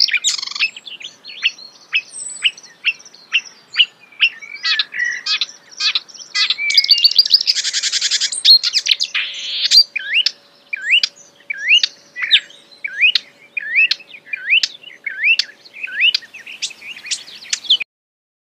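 A wild songbird singing vigorously: a run of varied chirps, a rapid buzzy trill about seven seconds in, then a steady series of short upward-sweeping whistles about two a second, until the song cuts off abruptly near the end.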